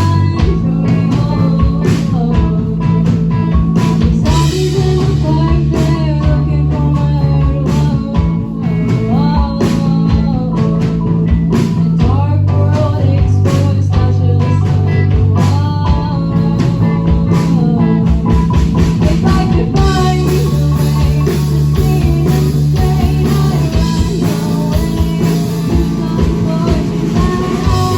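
A rock band playing live, with electric guitar, a bass line that holds each note for a few seconds, and a steady drum beat.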